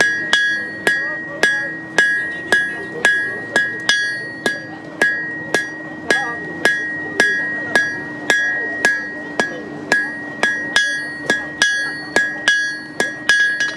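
Hand hammer striking red-hot iron on a steel anvil in a steady rhythm of about two blows a second, each blow giving a clear, high ring that fades before the next.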